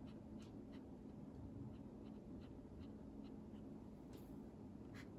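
Faint dabs and strokes of a watercolour brush on paper: a scattering of soft, short ticks over a low steady hum.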